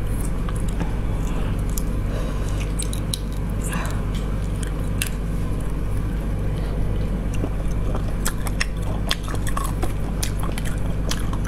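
Close-up eating sounds of braised snails: wet clicks and smacks as the snail meat is pulled from the shells and chewed, more frequent near the end, over a steady low hum.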